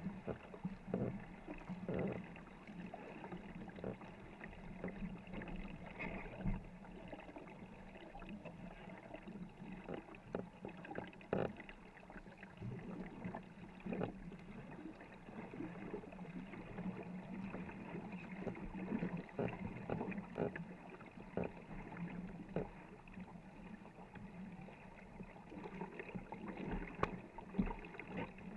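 Wooden paddles of a 24-foot war canoe dipping and pulling through the water in quick repeated strokes, each a short splash, over a steady low rush of water along the hull.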